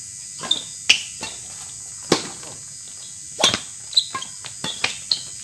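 Badminton rally: rackets striking the shuttlecock in a string of sharp, irregular cracks, about ten in all, mixed with players' feet on the court. A steady high insect drone, typical of crickets, runs underneath.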